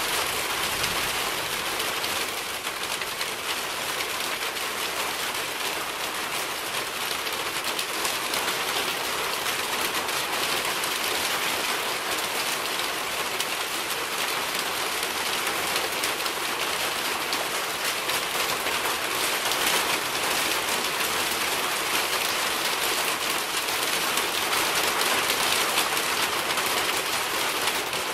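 Steady rainfall: an even, unbroken hiss of countless drops, mostly high-pitched with little low rumble.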